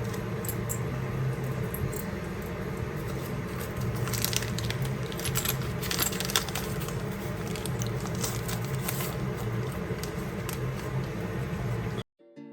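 Small metal clicks and clinks, like jewellery pieces being handled and set down, over a steady low hum. Near the end it cuts abruptly to plucked-string music.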